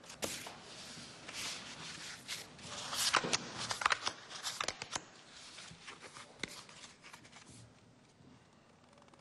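Playing cards being shuffled and handled: a quick run of rustles and sharp clicks, busiest in the first five seconds, then thinning out and growing quieter.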